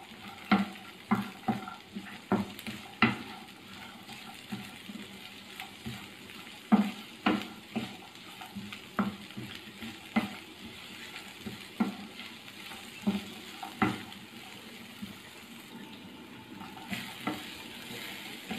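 Wooden spoon stirring raisins, carrots and almonds in a nonstick frying pan, knocking and scraping against the pan at irregular intervals, over a light sizzle of the food roasting in a little oil.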